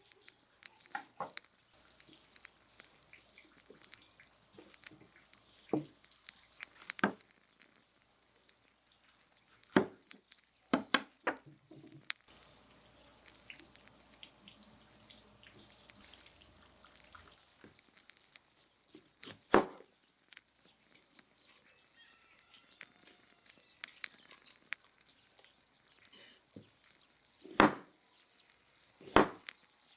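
Kitchen knife chopping on a wooden cutting board: scattered single strikes several seconds apart, the sharpest two near the end, with faint handling sounds between.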